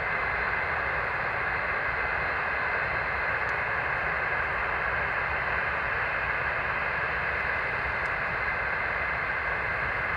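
Avro Vulcan's Rolls-Royce Olympus turbojets running steadily during a ground engine run: an even jet roar with a faint high whine held at one pitch.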